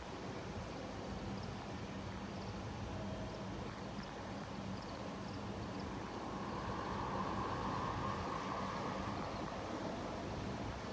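Steady road traffic noise with a vehicle engine running close by, swelling somewhat louder from about six seconds in. No siren is sounding.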